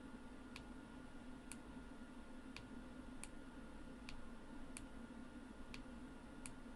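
Faint sharp clicks, about one a second and unevenly spaced, over a low steady hum.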